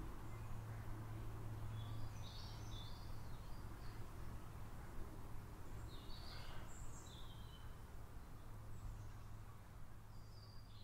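Faint outdoor ambience: a steady low hum and soft noise with short bird chirps about two, six and ten seconds in, growing slightly fainter toward the end.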